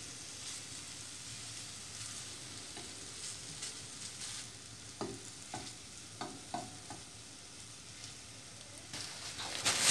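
Sliced Turkish sucuk sizzling in a dry stone-coated frying pan, frying in its own fat. A metal fork turning the slices taps and scrapes on the pan a few times about five seconds in, and the sizzle swells louder right at the end.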